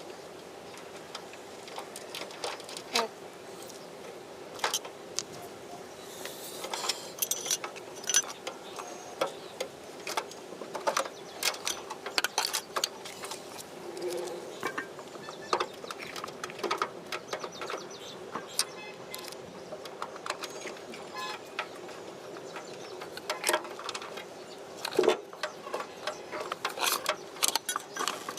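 Rapid, irregular clicks, clinks and knocks of hand work on kitchen chimney hood parts and tools, played at double speed, over a steady hum.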